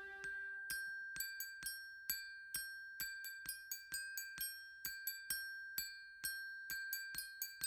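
Typewriter keys struck as a percussion instrument, sharp clacks with a metallic ring, about three a second in an uneven rhythm, over one held high tone. A soft sustained chord fades out about a second in.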